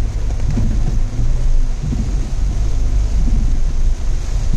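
Low, steady rumble of a car on the move, with road and wind noise.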